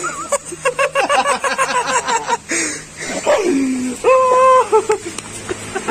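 A dog whining and yipping in a run of short calls, then a longer, steadily held whine about four seconds in.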